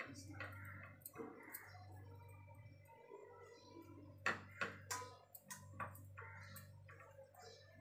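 A wooden rolling pin and hands working roti dough on a wooden rolling board: soft scraping and pressing, with a few sharp clicks and knocks about four to five seconds in, over a low steady hum.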